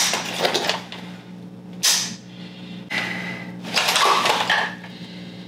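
Clicks, clacks and rustles of an AR-style rifle and nylon tactical gear being handled during a dry-fire drill, with one sharp metallic click about two seconds in. A steady low hum runs underneath.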